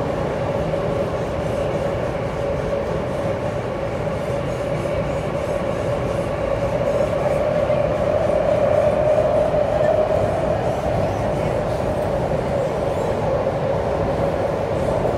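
Alstom C751A metro train running at full speed in an underground tunnel, heard from inside the car. A steady rumble with a constant humming tone that swells a little about halfway through.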